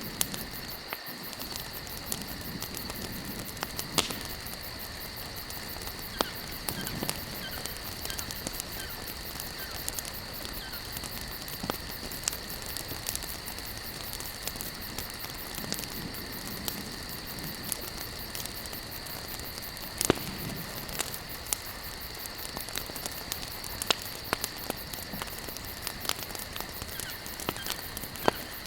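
Wood campfire burning, with sharp crackles and pops every second or so over a steady hiss, the loudest pops about 4 and 20 seconds in. A steady high-pitched insect drone runs under it.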